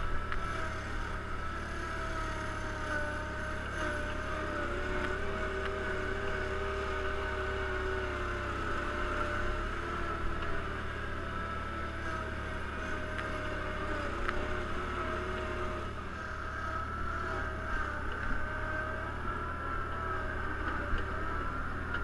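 Wards Twin 20 garden tractor's engine running steadily as the tractor drives along, with a whine whose pitch wavers slightly.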